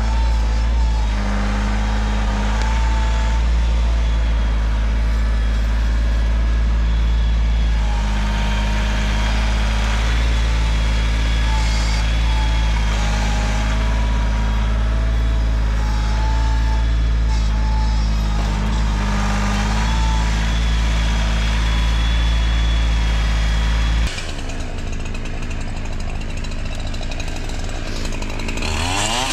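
Tractor engine running steadily at an even, low pitch. About 24 seconds in it gives way abruptly to a chainsaw revving up and down.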